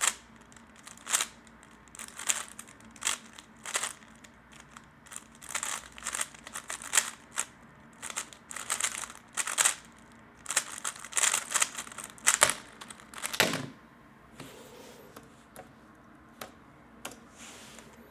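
A 3x3 speed cube being turned fast: quick clusters of plastic clicking and scraping layer turns with short pauses between, stopping about three-quarters of the way through, after which only a few faint handling sounds remain.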